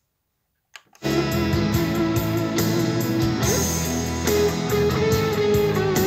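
A short click, then about a second in music with electric guitar starts abruptly and plays steadily through the Sony CMT-CP100 mini hi-fi's speakers as playback from a USB stick resumes from pause.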